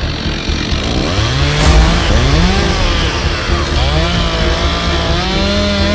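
Two-stroke top-handle chainsaw revving up and down several times while cutting, its pitch rising, holding and dropping with each throttle squeeze, with a longer high run near the end. A sharp knock about a second and a half in.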